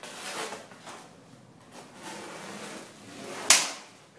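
A folded-steel katana striking a samurai kabuto helmet at full force: one sharp, loud impact about three and a half seconds in, with a short fading ring, after some soft handling noise. The helmet is tested to dent under such a blow but not be cut through.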